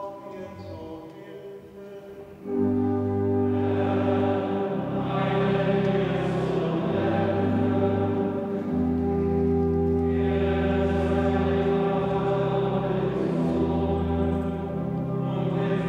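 Benedictine monks singing psalms together as a male chorus, over long held low organ notes. It starts quietly and swells up loud about two and a half seconds in.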